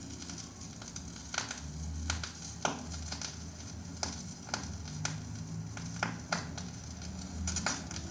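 Faint crackle with scattered sharp clicks, about one or two a second, over a steady low hum, with no music playing.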